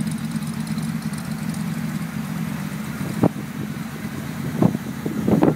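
Ford 400M V8 idling steadily, with a few short knocks, the loudest near the end.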